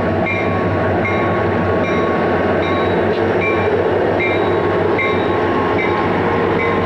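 Conrail freight train led by diesel locomotives passing close by, the engines and wheels on the rails making a loud, steady sound. A short high-pitched ring repeats about every three-quarters of a second over it.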